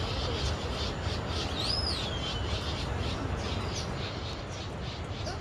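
Several birds calling in tropical forest, with many short high chirps. About a second and a half in, one clear whistle rises and then slides down. A steady low background rush sits underneath.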